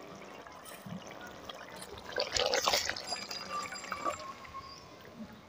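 Thick yam-and-potato curry being poured from a metal wok onto a steel plate: a wet pour and slop of liquid and chunks, loudest for about a second midway.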